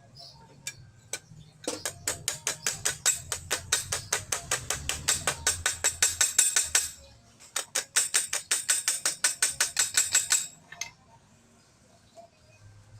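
Hammer blows on sheet steel, quick and evenly spaced with a bright metallic ring, as a small repair patch for a car body is shaped. Two runs of several seconds each, with a short break between them.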